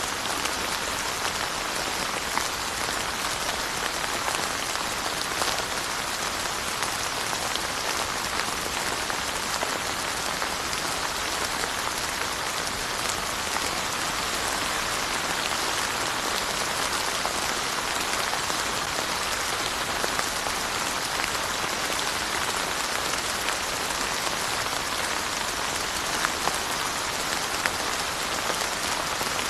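Steady rain falling, a dense even hiss with scattered individual drops ticking now and then.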